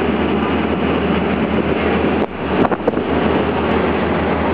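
Boat under way: a steady engine drone with wind on the microphone and rushing water. A brief dip and a couple of sharp knocks come about two and a half seconds in.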